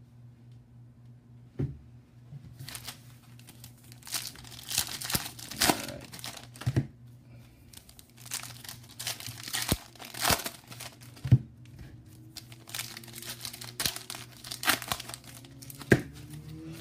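Foil baseball card pack wrappers being torn open and crinkled by hand, with sharp crackles and rustles starting about two and a half seconds in, after a single knock. A steady low hum runs underneath.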